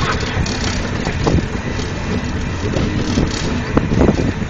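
Wind buffeting the microphone and the running and road noise of an open sightseeing cart in motion: a steady, low noise.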